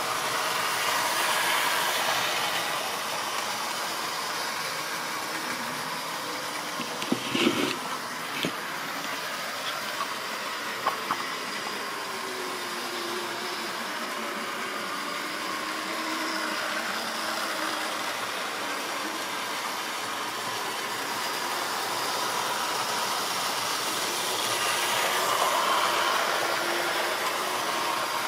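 Model railway trains running round the layout: a steady hum of small locomotive motors and wheels rolling on the track, swelling near the start and again near the end as a train passes close by. A few sharp clicks come about a quarter and about two fifths of the way through.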